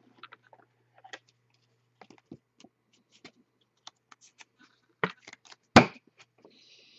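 Small clicks and rustles of a trading card being handled and slid into a clear rigid plastic card holder. A sharper click comes about five seconds in, and the loudest click follows just before six seconds.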